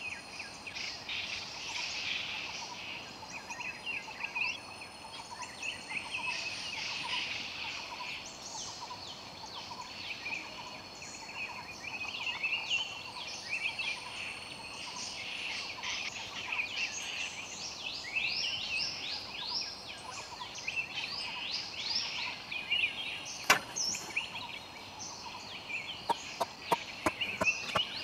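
Many birds chirping and calling at once in quick down-slurred notes, over a steady high insect drone. A single sharp knock comes about two-thirds of the way through, and a run of knocks starts near the end.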